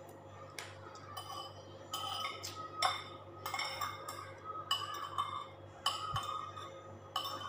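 Metal spoon and fork clinking and scraping against ceramic bowls and plates and cooked mussel shells, a string of about ten sharp clinks at uneven intervals, over a faint steady low hum.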